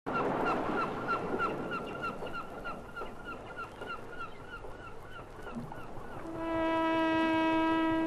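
Gulls calling in a fast, even string of short high calls, about three a second, for about six seconds. About six seconds in, a single loud held horn-like note with many overtones comes in, the first note of the background music.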